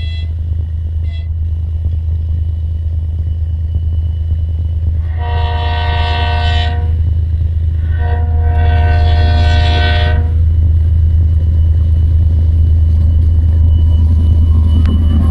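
M62 diesel locomotive approaching, its two-stroke V12 diesel giving a steady deep rumble that grows louder. It sounds two long horn blasts, the first about five seconds in and the second a second later.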